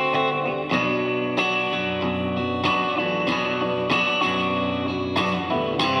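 Electric guitar playing an instrumental passage, chords struck about every two-thirds of a second over sustained low notes.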